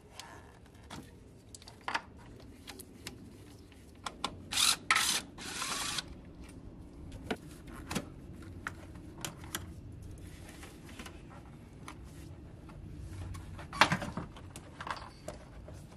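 Scattered clicks and knocks of hand work on a 2003 Infiniti G35's plastic and rubber air intake, with two short rasping bursts a little after four seconds and a sharp click near the end: the intake's hose clamp being loosened and the mass airflow sensor connector unplugged.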